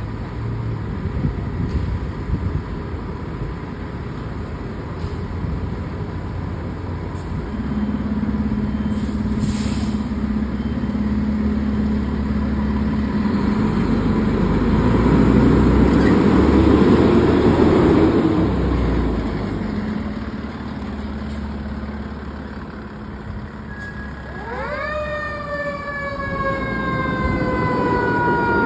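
Fire ladder truck's engine running and drawing close, loudest about midway, with a brief hiss shortly before. Near the end its siren winds up sharply, then slowly falls in pitch.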